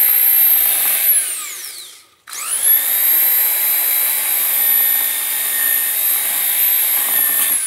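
Makita strip sander (narrow belt sander) sanding the cut end of a deck board, its motor running with a high whine. It winds down and stops about two seconds in, then spins up again at once and runs steadily, winding down at the end.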